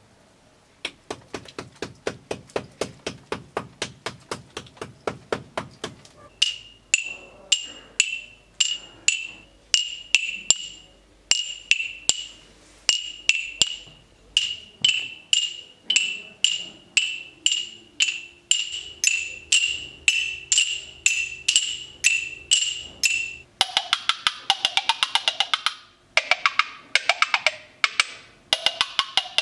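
Hand percussion of hard objects knocked together in a steady rhythm. It starts as light clicks, about four a second. These give way to louder strikes, about two a second, each with a short high ring. Near the end it turns into a fast, dense rattle.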